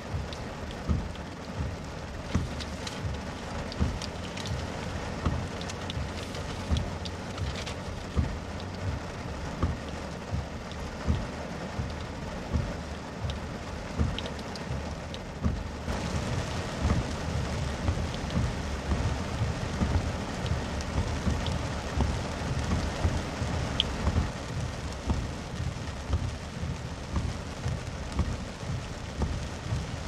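Heavy rain pelting a car's windshield and roof, heard from inside the car: a steady hiss with frequent dull low thuds from heavy drops. The rain turns heavier about halfway through.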